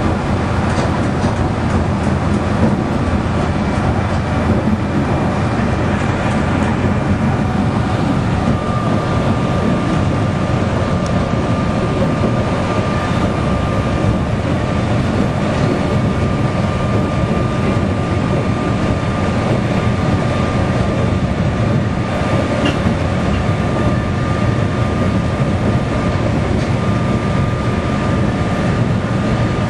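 A 2 ft 6 in narrow-gauge diesel locomotive running steadily, its engine and wheels on the rails heard close up from on board. A thin steady whine joins in about eight seconds in.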